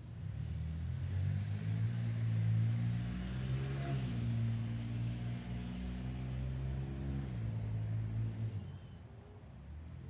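A motor vehicle's engine running as it passes by, loudest about four seconds in and fading away near the end.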